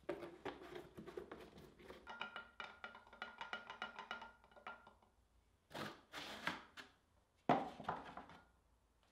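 A wooden stick stirring linseed paint in a glass jar: quick repeated knocks and scrapes against the glass, which rings faintly under the strokes. Two louder clattering sounds follow in the second half as a plastic paint roller tray is handled on the bench.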